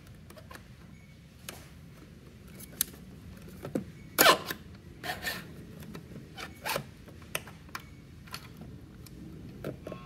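Scattered clicks and short scrapes of hands and a tool working the plastic housing of a patient monitor while it is put back together, the loudest a brief scrape about four seconds in.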